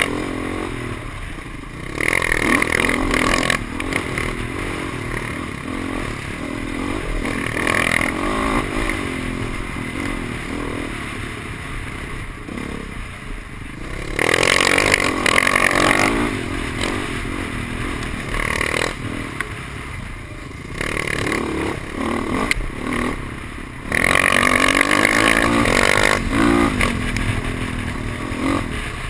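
Dirt bike engine running under way on a rough trail, revving up and easing off with the throttle, surging louder several times as it accelerates.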